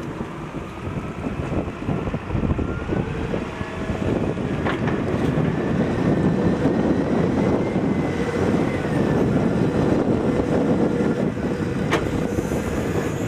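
Volvo L70D wheel loader's diesel engine working under load as the bucket pushes into a sludge pile and lifts, the engine note rising over the first few seconds with a faint whine that climbs and then eases. Two sharp knocks, one about five seconds in and one near the end.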